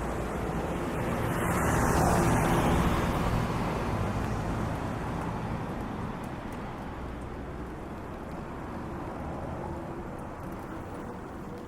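A car passing close by, its tyre and engine noise swelling to a peak about two seconds in and then fading into steady street traffic noise.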